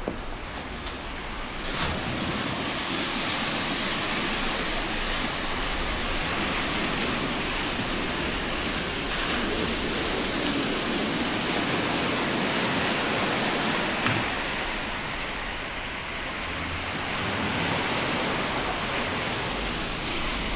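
Sea surf washing on a beach: a steady rushing noise that eases a little past the middle and builds again.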